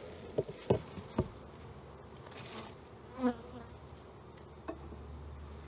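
Honeybees buzzing around an opened hive, with a few sharp knocks in the first second or so as the hive parts are set back in place.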